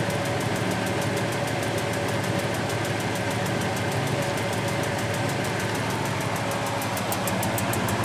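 Philips SL 202 front-loading washing machine running with its drum spinning: a steady whirring hum with a constant mid-pitched whine and a fast, even pulsing of several beats a second.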